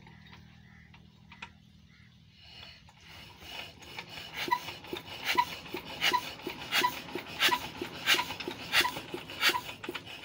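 Petter diesel engine being turned over by hand to start it: a regular rasping chuff with a click on each turn, about one and a half a second. It begins about three seconds in and grows louder as the cranking picks up.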